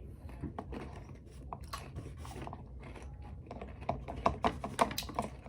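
A person eating close to the microphone: irregular crunchy chewing with small clicks and crackles, busier in the second half.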